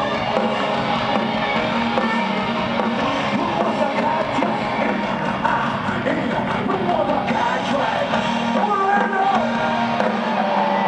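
Live glam-metal band playing through a stadium PA, with electric guitars and drums, recorded from the audience.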